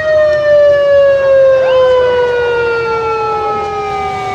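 Police motorcycle sirens, loud. One was wound up quickly just before and slides slowly down in pitch. A second rises fast about a second and a half in, then also slides slowly down.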